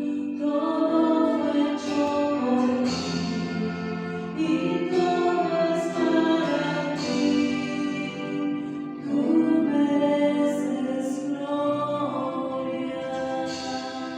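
Music with singing voices, a slow sustained melody that sounds choral.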